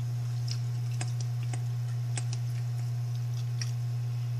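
Eating by hand at close range: a scattering of soft, irregular small clicks from mouth and fingers as rice and fried fish are eaten, about nine over a few seconds. Under them runs a steady low hum, the loudest thing heard.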